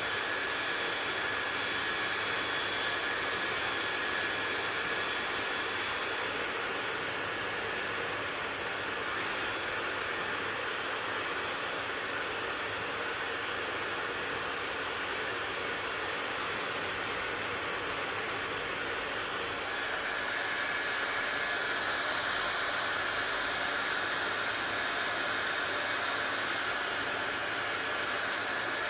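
Hair dryer running steadily: a constant rush of fan and air noise with a faint high whine. About two-thirds of the way through, the sound shifts a little louder and brighter.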